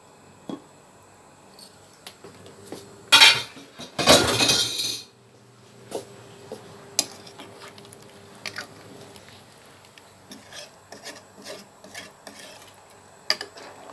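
A metal pot lid is lifted off an aluminium cooking pot with two loud scraping clatters about three to five seconds in. Later a metal ladle clinks and scrapes against the pot in a run of small knocks as the soup is stirred.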